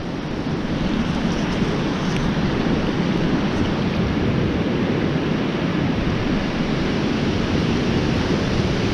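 Ocean surf washing onto the beach, with wind on the microphone adding a low rumble; a steady, unbroken noise.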